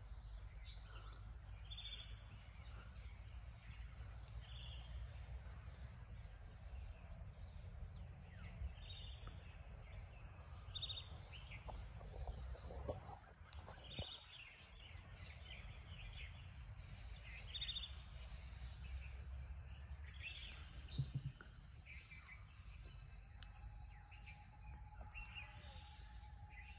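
Faint outdoor ambience: a steady low rumble with short, high bird chirps every second or two.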